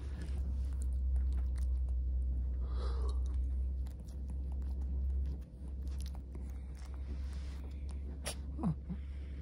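Shih Tzu licking and mouthing close to the microphone: small wet clicks and smacks over a steady low hum, with one sharper click near the end.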